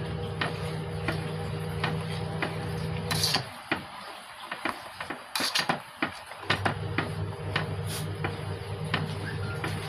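A ladle stirring thick tamarind chutney in a pan, with scattered clicks and knocks as it hits the sides and bottom of the pan. A steady low hum runs underneath and drops out for about three seconds midway.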